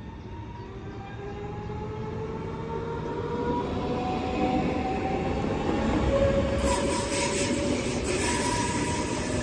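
Deutsche Bahn Class 424–426 family electric multiple unit with a whine of several tones, rising slowly in pitch and growing louder. About six and a half seconds in, a high-pitched squealing noise joins it.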